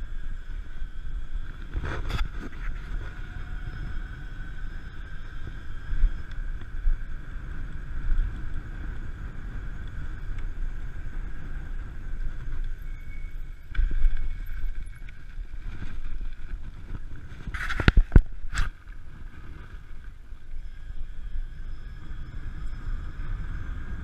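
A 1000 W 48 V electric bicycle motor whining steadily under throttle at speed, over a constant low rumble of wind on the camera's microphone. A sharp knock comes about two seconds in, and a quick cluster of knocks comes about three-quarters of the way through.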